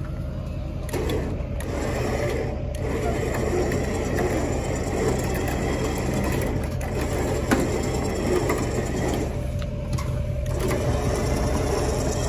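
Electric trailer winch running, its gears whirring as it pulls the truck forward on the deck, the front end rolling on a floor jack; it stops briefly about ten seconds in and starts again.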